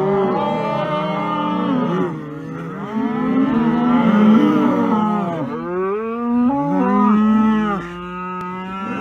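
Cattle mooing: long, drawn-out calls that rise and fall in pitch and overlap one another.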